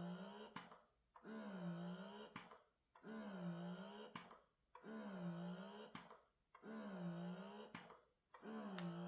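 Eufy S1 Pro wearable breast pump running through its suction cycles: a low motor hum that dips in pitch and rises again, then stops briefly with a faint click, repeating about every two seconds, some five times.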